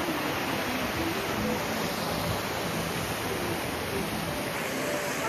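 Steady rushing of a mountain stream's water, with faint background music playing over it.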